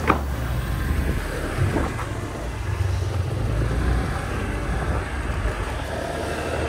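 Small motorcycle engine running at a steady road speed, with wind noise on the microphone and tyre rumble. There is a sharp knock at the start and a fainter one about two seconds in, as the wheels run over the loose wooden planks of the bridge deck.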